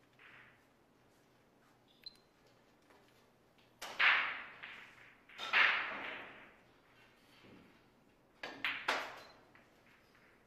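Hard clacks of pool balls on a heyball table: two loud ones about four seconds in and a second and a half later. Near the end comes a quick cluster of clicks as the cue ball is shot into an object ball.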